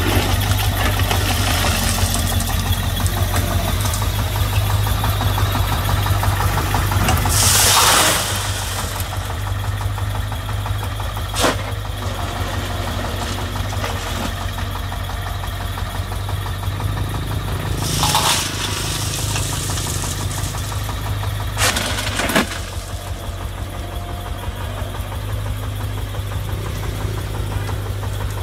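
Komatsu PC50 mini excavator's diesel engine running steadily with a low, even pulse while its clamshell grab scoops and dumps crushed stone. Short loud rushes of stone pouring come about eight seconds in and again about eighteen seconds in, with a few sharp clacks between.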